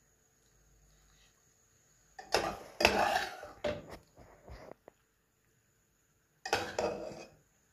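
A metal spoon scraping and clinking against a ceramic serving plate as cooked carrot halwa is spread out on it. It comes in three short bouts of clatter, about two, three and a half, and six and a half seconds in.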